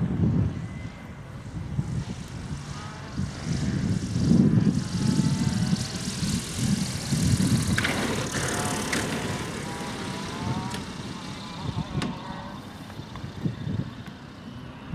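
Grob G109 motor glider flying low past with its propeller engine running. It swells into a rushing pass about halfway through as it touches down on the runway, then fades as it rolls away.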